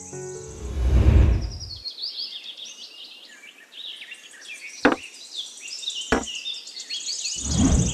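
A loud whoosh about a second in, then birds chirping, with two sharp clicks as small clear plastic dishes are set down on sand, and a second whoosh near the end.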